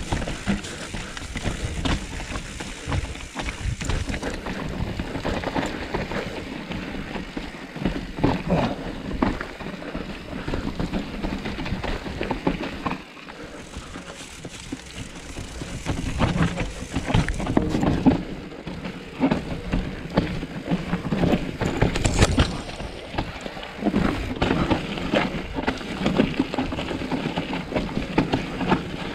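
Trek Slash 8 full-suspension mountain bike descending a rough, wet trail: continuous rolling and rattling noise broken by frequent sharp knocks and clatter as it goes over the bumps.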